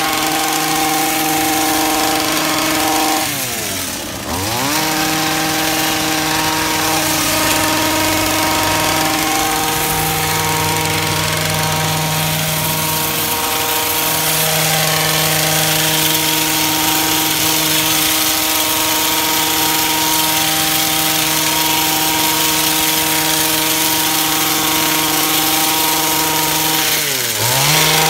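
Stihl gas long-reach hedge trimmer engine running steadily at high revs. About four seconds in and again near the end the revs drop sharply and then climb back up, as the throttle is let off and squeezed again.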